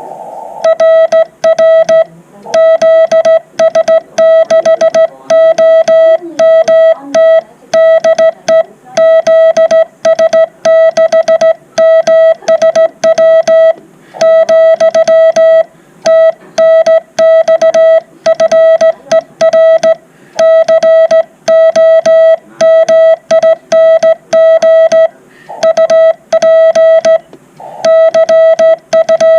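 Morse code (CW) sent by hand on a straight key, heard as a steady mid-pitched sidetone beeping in dots and dashes with short gaps between characters and words.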